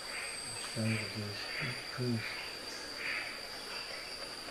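Insects calling steadily, a thin unbroken high tone with soft hissy pulses repeating under it. A man's voice mutters faintly twice.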